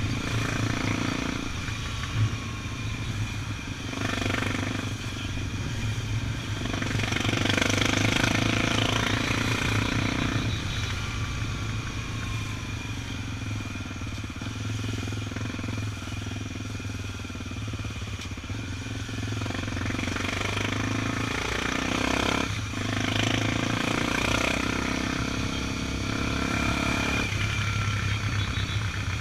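Honda XR 250 Tornado's single-cylinder four-stroke engine running steadily at cruising speed, under a rush of noise that swells and fades a few times.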